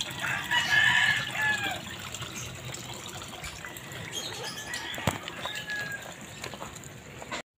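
A rooster crowing: one loud crow lasting over a second near the start, a fainter crow a few seconds later, and a sharp click about five seconds in, over a steady background wash.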